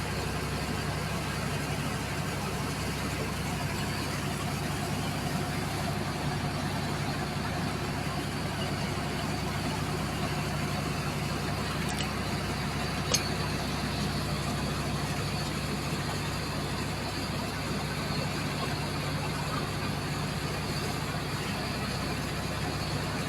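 An engine running steadily at an even, unchanging speed, with a single sharp click about thirteen seconds in.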